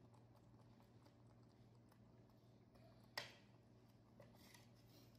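Near silence: room tone with a steady low hum, broken by a single sharp click about three seconds in and a few faint rustles.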